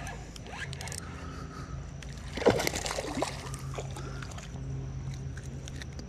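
Water sloshing and splashing as a hooked smallmouth bass is fought at the surface and brought in, with a louder splash about two and a half seconds in.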